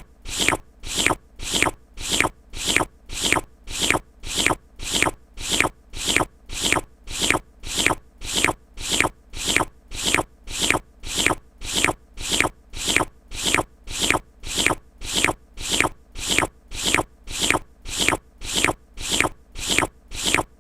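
Lip-licking sound, boosted and repeated evenly about twice a second, each lick a short stroke sweeping downward in pitch.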